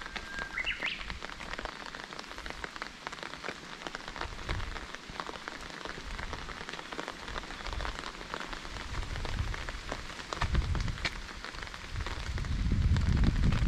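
Steady rain pattering, a dense run of fine drop ticks. A brief high chirp sounds right at the start, and low rumbling swells come in twice in the second half, the louder one near the end.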